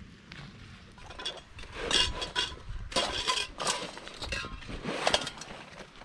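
Metal camp cookware clinking and clattering as it is handled, a run of irregular knocks with brief metallic ringing, loudest about two seconds in and again through the middle.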